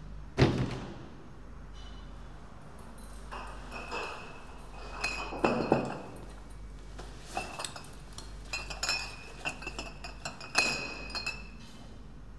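A sharp knock about half a second in, then a run of light clinks and rattles, several ringing briefly, from small hard objects being handled and knocked together.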